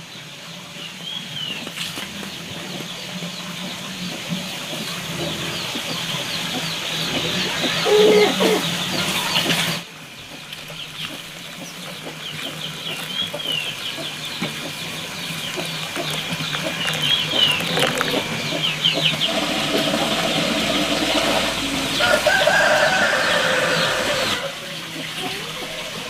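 Chickens clucking and calling, with a louder call lasting a second or two about eight seconds in and a longer run of calls near the end, over many short high chirps throughout.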